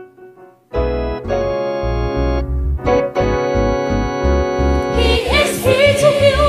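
Keyboard playing sustained organ-style chords over a pulsing bass line, coming in sharply about a second in after a brief lull. A singing voice joins over the chords near the end.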